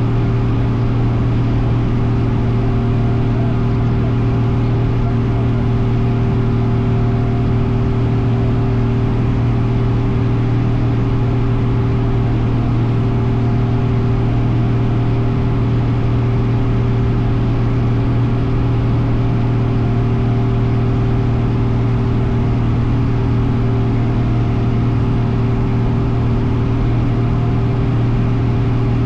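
Cessna aircraft's engine and propeller running steadily: a constant low drone that holds one pitch throughout.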